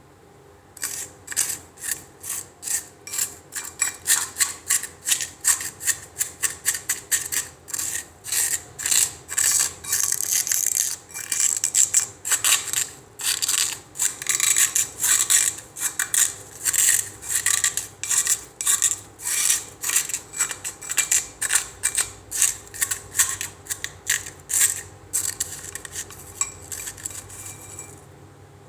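Freezer ice being scraped in quick repeated rasping strokes, about two or three a second, stopping shortly before the end.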